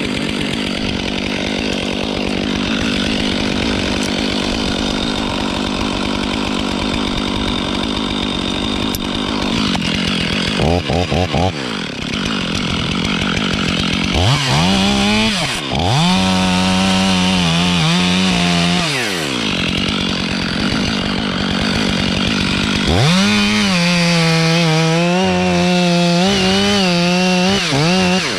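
Two-stroke chainsaw cutting wood. It runs rough at low speed at first and gives a short blip of throttle, then twice rises to a steady high-pitched whine at full throttle for several seconds before dropping back.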